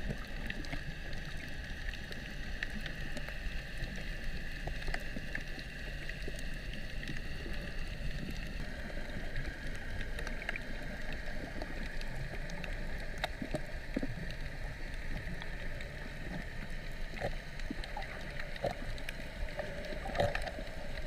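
Underwater ambience picked up by a camera in its waterproof housing: a steady low rush with many faint scattered clicks and crackles, and a faint steady whine that fades out about eight seconds in. A brief louder knock comes near the end.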